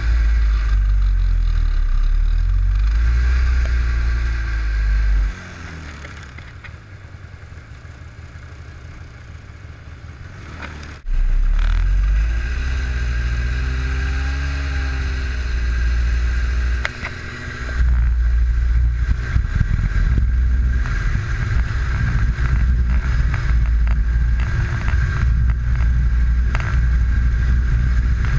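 Snowmobile running along a groomed trail, its engine pitch rising and falling twice as the throttle is worked, over a steady high whine and heavy low wind rumble on the microphone. The rumble drops away about five seconds in and comes back about six seconds later.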